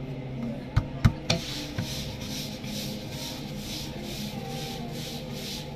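Hands pressing and stretching dough on a stone counter: a few sharp knocks about a second in, then repeated swishing rubbing strokes at an even pace, over a steady low hum.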